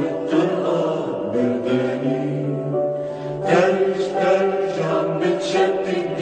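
Background music with long held notes and no clear words.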